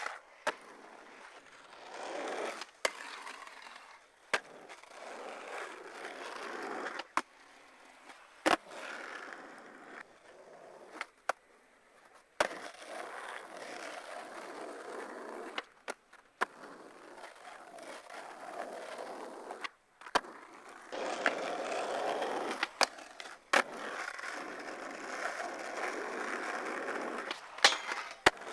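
Skateboard wheels rolling on concrete in stretches, broken by a dozen or so sharp clacks of the board popping and landing. In between are grinds along a ledge and a flat rail.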